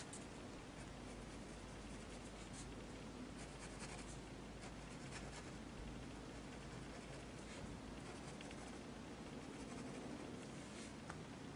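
Pen scratching on sketchbook paper in short, irregular strokes, faint.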